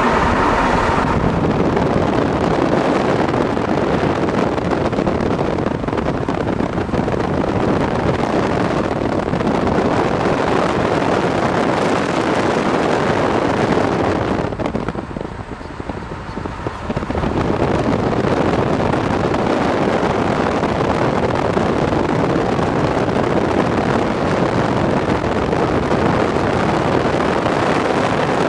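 Steady road and wind noise of a moving car, an even rushing sound that dips briefly about fifteen seconds in and then comes back.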